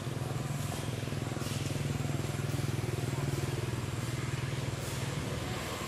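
A motor engine running steadily nearby, its low hum growing a little louder toward the middle and then fading out near the end.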